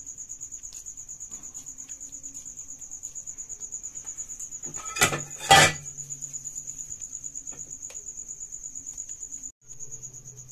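Crickets chirping in a steady, high, rapidly pulsing trill, with two sharp knocks about five seconds in. The sound cuts out for a moment near the end.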